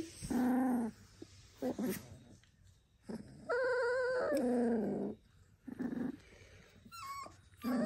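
Doberman puppies about three weeks old whimpering and yelping: several short whines and one longer, wavering whine in the middle, with quiet gaps between.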